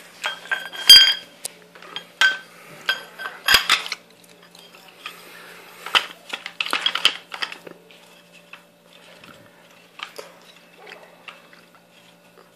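Metal parts clinking and knocking as a bipod adapter is fitted onto a paintball marker's barrel: a string of sharp clicks with short metallic ringing, loudest about a second in and thinning out after about eight seconds.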